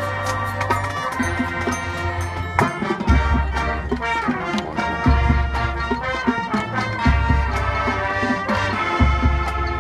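High school marching band playing its field show: brass chords over low held bass notes that change every one to two seconds, with frequent drum and percussion hits.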